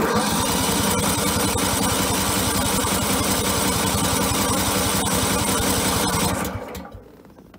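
Electric starter cranking the choked 16-horsepower Kohler Command engine of a 1997 Simplicity Coronet riding mower on a cold start, turning it over at a fast even rhythm without it catching. It starts with a click, runs for about six seconds, then winds down as the key is let go; the engine is not firing, which the owner later checks for as a lack of spark.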